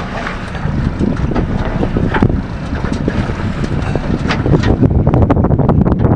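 Wind buffeting the microphone on an open boat at sea: a heavy, irregular low rumble that gets louder about five seconds in.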